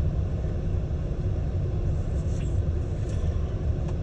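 Steady low rumble of a freight train of hopper cars rolling past a crossing, heard from inside a stopped car.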